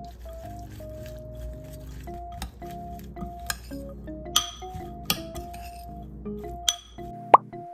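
Metal spoon clinking and scraping against a glass mixing bowl while tossing a wet shredded-carrot and corn salad, a series of sharp clinks spaced irregularly, over light background music.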